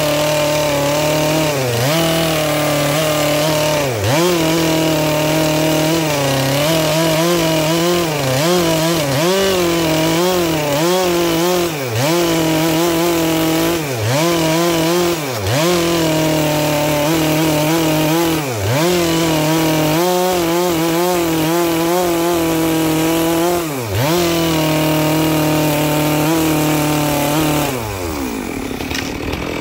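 Stihl MS 462 two-stroke chainsaw with a 25-inch bar at full throttle, rip-cutting along the grain of a dry walnut log to make boards. The engine note dips briefly and recovers every second or two as the chain takes load. Near the end the revs fall low for a moment.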